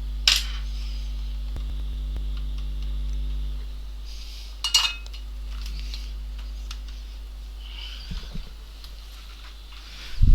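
Small metal hand tools clinking and tapping on a workbench now and then, the sharpest clink about five seconds in, over a steady electrical hum.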